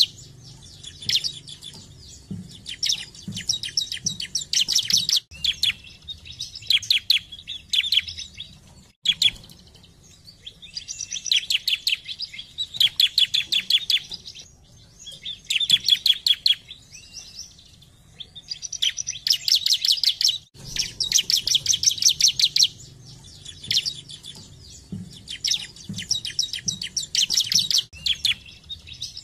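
Bar-winged prinia (ciblek) singing: repeated phrases of rapid, evenly spaced high chattering notes, each phrase a second or two long, with short pauses between.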